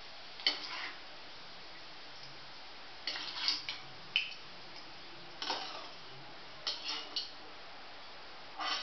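Wire-mesh skimmer clinking and tapping against the rim of a metal kadhai while fried pakodas are lifted out and drained of oil: a handful of short light knocks at irregular intervals.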